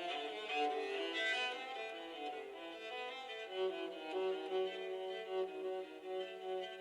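LG phone tone playing a string melody led by a violin, with a held lower note coming in about three and a half seconds in.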